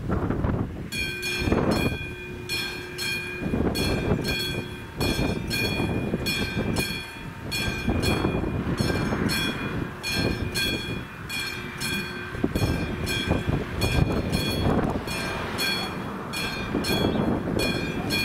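Level crossing warning bell starting to ring about a second in, a rapid, even series of metallic dings, as the crossing's red lights begin flashing: the crossing has activated for an approaching train. Wind gusts buffet the microphone underneath.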